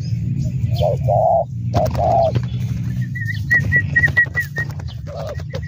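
Spotted dove cooing, two low coos about a second apart, with the scrape and flutter of a dove's wings beating on the ground. About halfway through, a run of quick high chirps, about four a second, comes from another bird.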